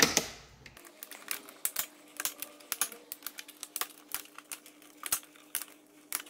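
Quick, irregular plastic clicks and snaps as the SNOO bassinet's mesh netting edge is popped out of the plastic clips around its base, with one loud snap right at the start.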